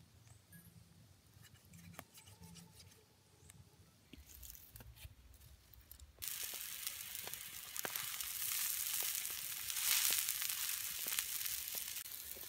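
After a few quiet seconds, a loud, steady hiss starts suddenly about six seconds in, with scattered small pops and crackles. It comes from a blackened wok holding a pork leg, chillies and liquid, hissing as it cooks over an open wood fire.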